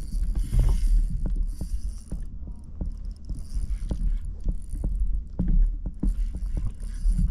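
Steady low rumble with irregular light knocks and clicks, a few each second.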